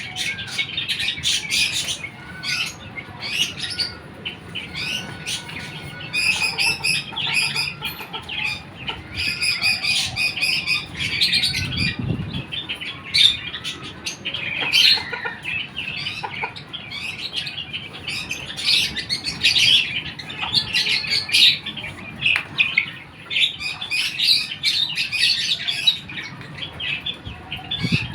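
Silkie chickens chirping and calling, many short high calls overlapping without a break.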